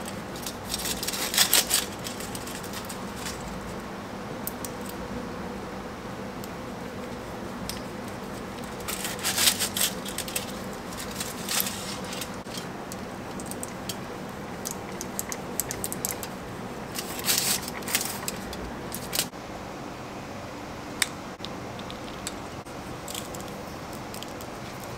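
Knife slicing a cooked beet on a sheet of aluminium foil. There are about four short bursts of foil crinkling and a few light clicks of the blade, over a faint steady hum.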